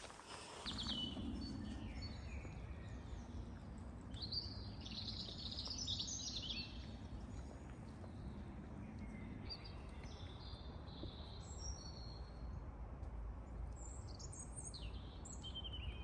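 Wild birds chirping and singing, several calls and trills overlapping, over a steady low rumble.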